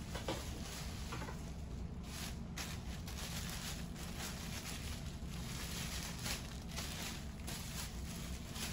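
Clear plastic packaging bag crinkling and rustling in uneven bursts as an air fryer's wrapped mesh tray is handled and pulled out of it.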